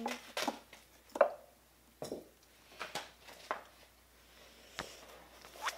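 Scissors snipping and plastic packaging being handled, as scattered short snips, clicks and crinkles spaced about a second apart.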